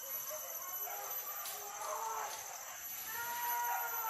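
Hunting dogs yelping and baying in short pitched calls, then one long drawn-out howl from about three seconds in that falls in pitch at the end.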